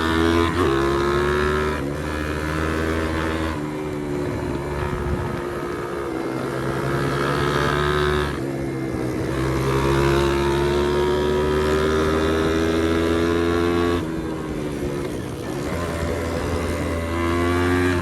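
Pit bike's single-cylinder four-stroke engine under way. Its note rises under acceleration and drops back sharply several times as the rider shifts or eases the throttle.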